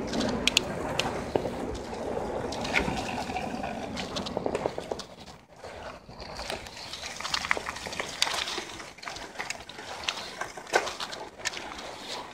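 Bicycle tyres rolling over a wet road, with a wet hiss and many small clicks and rattles from the bike. It goes briefly quieter near the middle as the bike crosses a muddy dirt patch.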